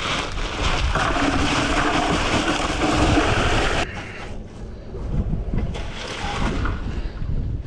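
Ice cubes poured from a bag and rattling into a plastic tub for about four seconds, stopping suddenly. Then wind buffets the microphone over the lapping of water.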